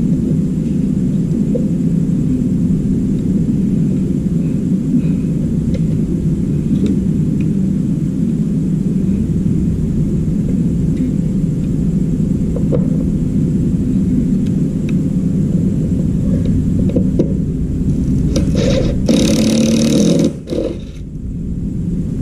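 Makita cordless reciprocating saw cutting through the metal frame of a washing machine tub, running steadily. Near the end the cut turns louder and harsher for a second or so, then the sound dips briefly.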